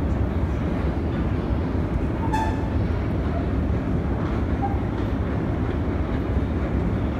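Deep-level metro escalator running on its long climb: a steady low rumble of the moving steps and handrails, with a short squeak about two seconds in.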